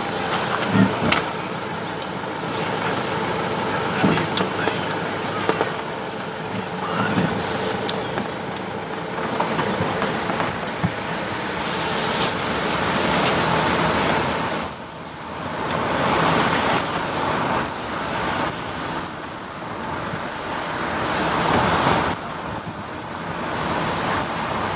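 Road noise of a moving car: a steady rush of tyres and wind, with a few light knocks, that dips briefly about fifteen seconds in.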